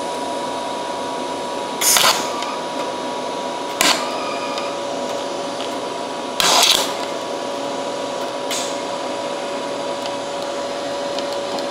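MIG welder striking short tack-weld arcs on thin sheet metal: three brief noisy bursts and a fainter fourth, the arc cutting in and out from a poor ground. A steady machine hum runs underneath.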